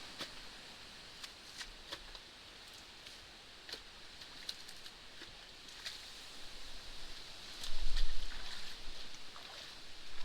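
Water running and trickling through a canal and a breached beaver dam, with scattered sharp clicks and snaps of sticks and debris. Low rumbling knocks come in from about three-quarters of the way through.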